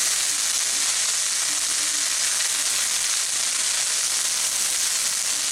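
Green chilli paste and garlic paste frying in hot mustard oil in a non-stick pan: a steady sizzle.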